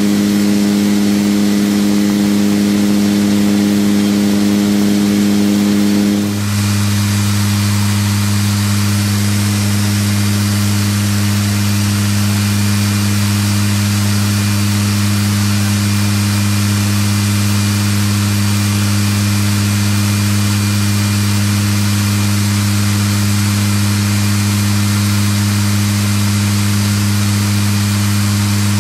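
Steady in-flight drone of a C-27J Spartan's two Rolls-Royce AE2100 turboprops and six-blade propellers, heard from inside the aircraft in cruise. About six seconds in, the drone changes abruptly and a deeper hum becomes strongest.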